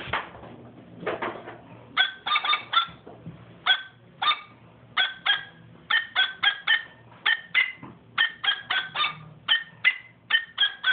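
Short, high-pitched yapping squeaks, dozens of them in quick uneven runs like a tapped-out tune, made with a plush dog hand puppet.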